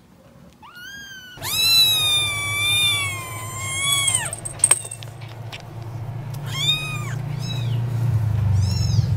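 Kitten meowing: a short rising meow, then one long drawn-out meow lasting about three seconds, then a few shorter meows near the end, over a low steady hum.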